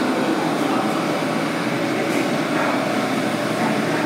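R179 subway train standing at the platform with its doors open: the steady hum and whir of the car's air conditioning and equipment, with a few faint steady tones in it.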